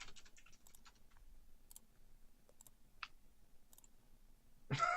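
Faint, sparse clicking of computer keys: a quick run of clicks at first, then single clicks about once a second.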